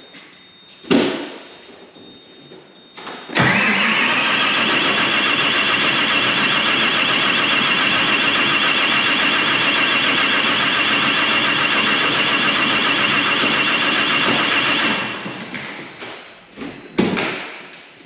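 A thump, then a tractor's starter motor cranking its diesel engine for about eleven seconds: a steady whine that rises as it spins up, then winds down when released, with the engine never catching. This is a no-start after the exhaust manifold and engine wire harness were refitted.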